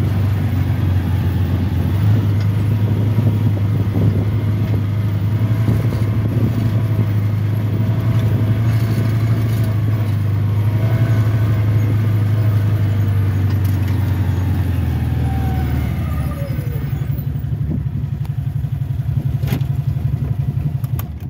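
Small petrol scooter engine running steadily under way over rough ground, its note changing to a lower, rougher run about fifteen seconds in, then shutting off at the very end.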